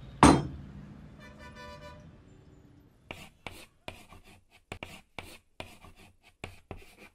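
Chalk scratching on a blackboard in quick short strokes, about four a second, from about three seconds in, as letters are written. Near the start there is a single loud, sudden burst.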